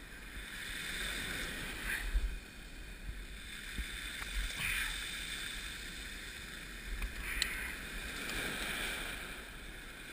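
Surf washing onto a rocky shore, with wind rumbling on the microphone and a few brief sharp sounds about two, four and a half and seven and a half seconds in.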